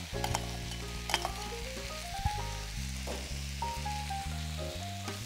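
Vegetables sizzling in oil in a sauté pan, with a few sharp clinks of metal tongs against a steel bowl as tofu is added. A slow background-music melody with a bass line plays over it.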